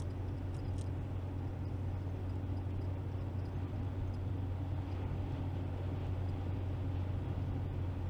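Steady low rumble of a car driving at speed on an open road: engine and tyre noise heard inside the cabin.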